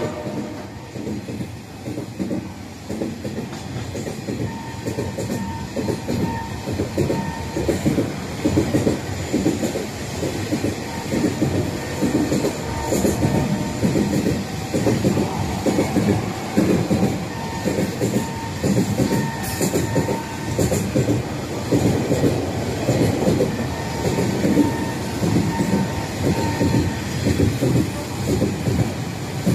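Container freight train wagons rolling past close by, their wheels clattering over the rail joints in a continuous, uneven run of clicks and knocks.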